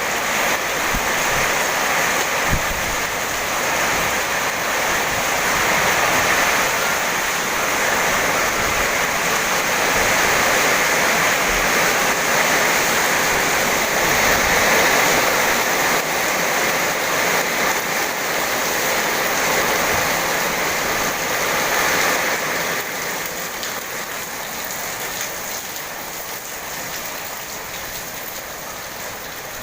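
Heavy tropical rain pouring down steadily as a dense hiss, easing slightly over the last several seconds.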